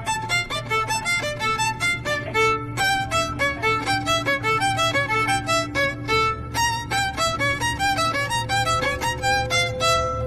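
Music with a violin playing a fast tune in quick, short notes.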